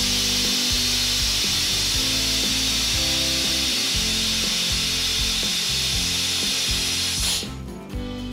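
Loud, steady hiss of air through a compressor-driven vacuum egg lifter, whose hose-fed suction cups pick up eggs for the candler. The hiss cuts off suddenly about seven seconds in. Background music plays underneath.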